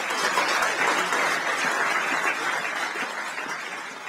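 Audience applauding: dense clapping from a full room, starting to die away near the end.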